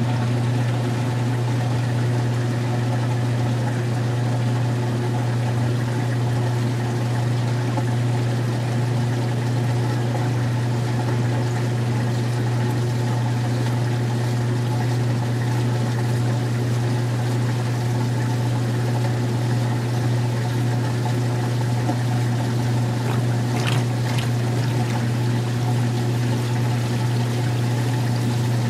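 Magic Chef 20-pound top-load washer in its wash spin/drain: a loud, steady motor hum with water rushing and trickling out as the soapy wash water drains and the basket spins.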